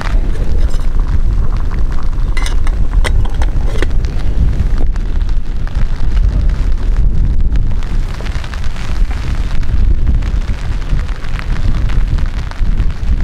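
Strong wind gusting over a tent and buffeting the microphone, a heavy, loud low rumble, with rain on the tent fabric. A few sharp taps sound between about two and four seconds in.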